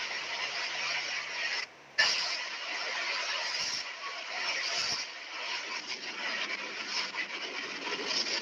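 Heavy rain pouring down, a dense steady hiss that briefly cuts out just before two seconds in.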